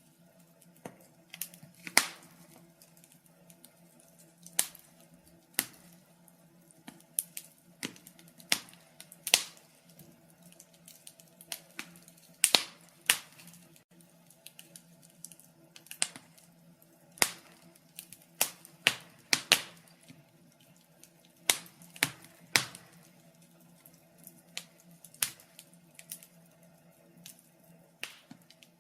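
Wood fire crackling: irregular sharp pops and snaps, one to three a second, over a faint steady low hum.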